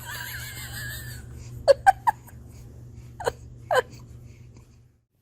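A baby sneezing in small, quick bursts: three short sneezes in rapid succession about two seconds in, then two more about a second later.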